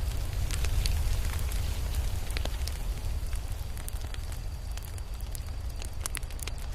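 Fire crackling, with irregular sharp pops over a steady low rumble.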